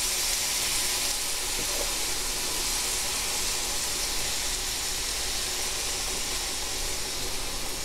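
Marinated chicken thigh pieces sizzling in hot olive oil on a preheated griddle: a steady, even hiss as the meat starts to sear.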